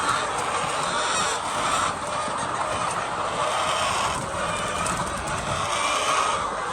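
A large flock of chickens clucking and squawking together, many short calls overlapping into a steady din.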